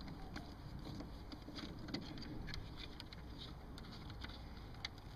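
Faint small clicks and handling sounds of a screwdriver and a loosened screw being handled, over a low steady background rumble.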